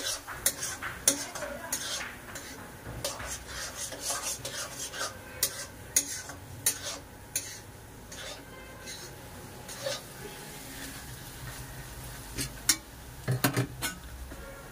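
Steel spatula scraping and knocking against a steel kadhai as thick besan halwa is stirred, the gram flour swelling in the sugar syrup. Irregular scrapes and clanks, with the sharpest knocks about a second in, around the middle and in a quick cluster near the end.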